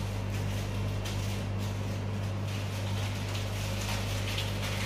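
Steady low hum with an even hiss over it, the running of a kitchen ventilation fan.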